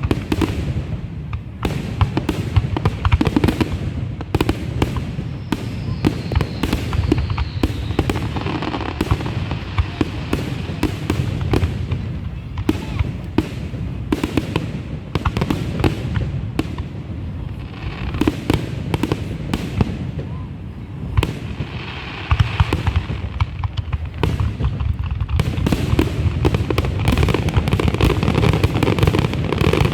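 Fireworks going off in a dense, irregular run of sharp pops, crackles and bangs.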